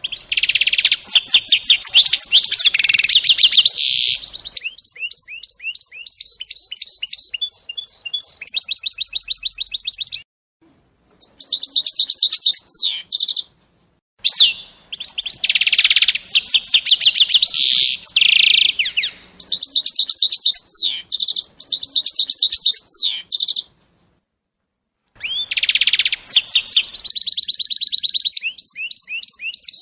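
A small songbird singing long, rapid trilling phrases, high in pitch, broken by three short pauses.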